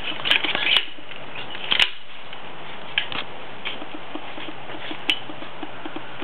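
Sharp plastic-and-metal clicks and rattles from an airsoft rifle's Classic Army M203 grenade launcher being handled and loaded. There is a cluster of clicks in the first second, a louder click just before two seconds in and a single click about five seconds in, over a steady hiss.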